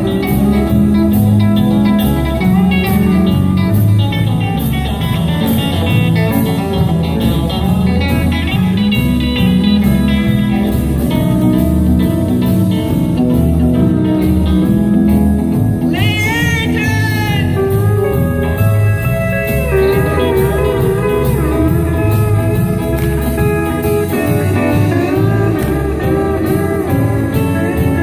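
Live country band playing an instrumental break, electric guitar and pedal steel guitar over bass and drums. About halfway through, a run of high gliding, sliding notes comes in.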